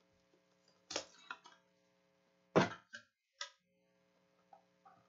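Scattered sharp clicks and taps, a few in a row near one second in and the loudest about two and a half seconds in, over a faint steady hum.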